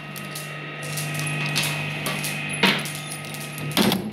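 Glass marbles clattering and knocking against the steel cutters of an industrial twin-shaft shredder, with sharp hits about one and a half seconds in, a loud one about two and a half seconds in and another near the end, over the machine's steady hum.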